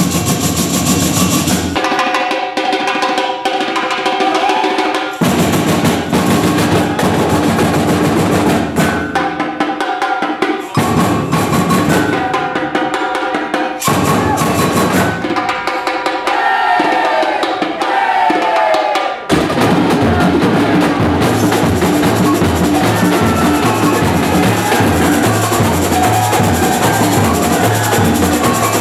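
A samba bateria playing loud live percussion: drums with chocalhos, rows of metal jingles shaken on rods. The sound changes abruptly several times, and from about two-thirds of the way in a steady low bass-drum pattern runs underneath.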